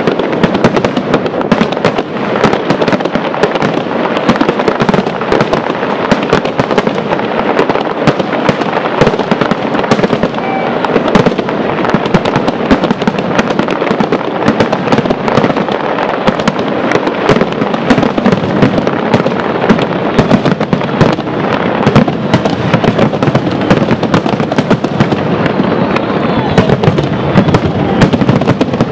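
Japanese aerial firework shells bursting in a dense barrage, many bangs and crackles a second with no pause.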